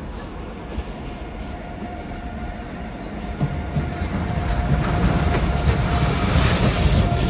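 A Renfe Alvia train passing close by. Its running noise and wheel-on-rail rumble grow steadily louder from about three seconds in as it draws level, with a light clatter of wheels over the track.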